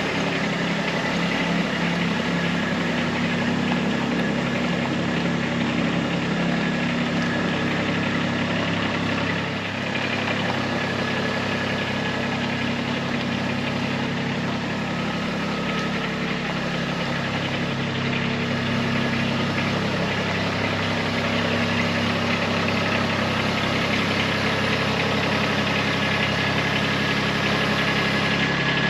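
Kubota B2301 compact tractor's three-cylinder diesel engine running steadily after being started.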